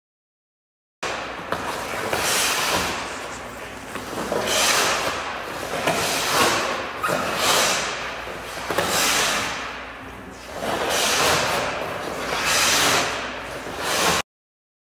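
Goalie skate blades scraping and carving across the ice in repeated pushes and shuffles, about seven hissing scrapes that swell and fade every second and a half to two seconds, with a few light knocks. The sound starts suddenly about a second in and cuts off suddenly near the end.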